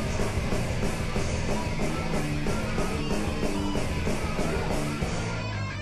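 Background rock music with guitar and a steady beat, thinning out briefly near the end.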